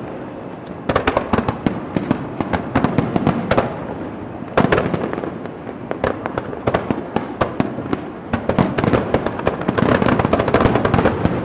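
Fireworks display going off: dense clusters of crackling pops and bangs, with a single sharp bang about four and a half seconds in and the crackling growing busier near the end.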